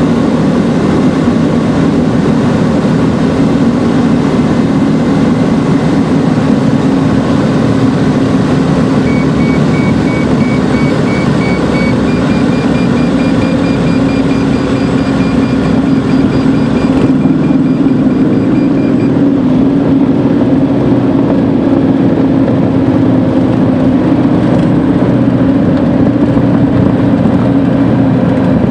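Motor glider's engine and propeller droning steadily, heard loudly from inside the cockpit during the landing. About a third of the way in, a rapid electronic beeping starts and runs for about ten seconds, stepping up slightly in pitch partway through.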